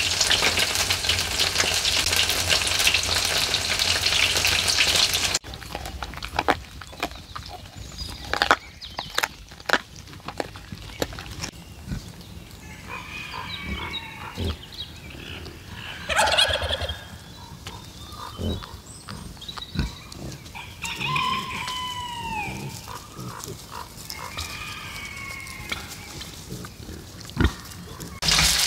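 Pancakes sizzling in hot oil in a pan for about five seconds, cut off suddenly. Then pigs and piglets grunting and giving short squeals, with scattered rustles and crackles of dry leaves and twigs.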